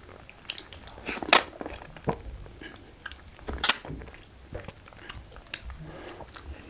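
Close-miked eating mouth sounds from chewing soft starch dough and catfish head in banga soup: wet chewing and lip smacks in a run of short sharp clicks, with two louder sharp sounds about a second and a half in and just under four seconds in.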